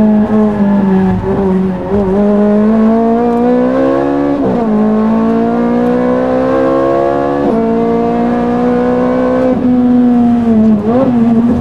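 Ferrari race car engine heard from inside the cockpit, accelerating with a climbing pitch that drops sharply at gear changes about four and a half and seven and a half seconds in. It then holds fairly steady and falls away near the end after a brief throttle blip.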